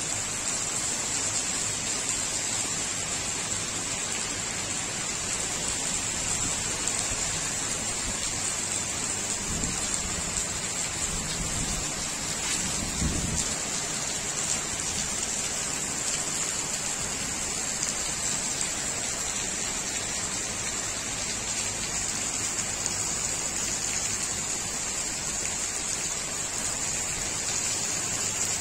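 Heavy rain pouring steadily, a dense even hiss with no let-up. Two brief low rumbles come about ten and thirteen seconds in.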